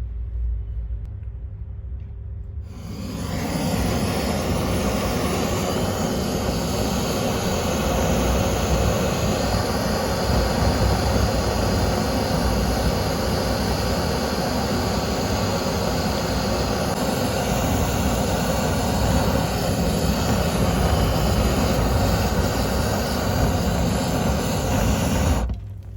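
Nuts burning in a high-heat fire: a steady rushing hiss over a low rumble. The hiss comes in about three seconds in and drops away just before the end.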